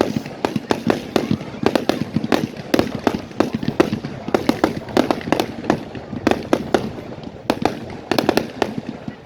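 Fireworks going off in quick succession: a continuous, irregular string of sharp bangs and cracks, several a second.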